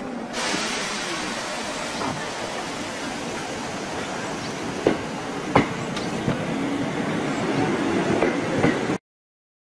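Electric commuter train moving past along the platform, its running noise slowly getting louder, with wheels clicking over rail joints several times in the middle. The sound cuts off suddenly near the end.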